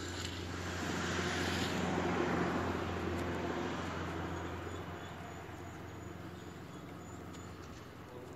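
A motor vehicle passing, its engine and tyre noise swelling to the loudest point about two seconds in and then slowly fading, over a steady low engine hum.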